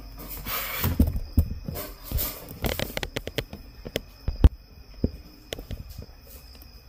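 Handling noise from the recording phone being set in place: a scattered run of clicks and knocks with some rustling, the sharpest knock about four and a half seconds in.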